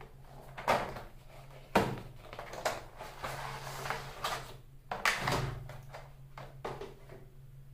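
Cardboard product box being opened and its packaging handled: a handful of sharp knocks and taps with rustling in between, over a faint steady low hum.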